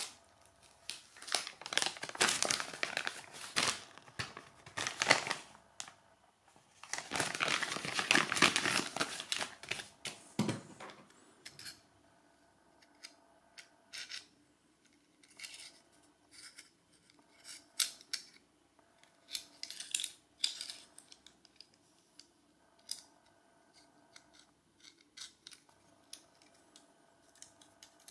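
Plastic packaging crinkled and torn open in two long bursts over about the first ten seconds, then scattered light metallic clicks and scrapes of a stainless steel weld gauge being handled and its pivoting arm turned.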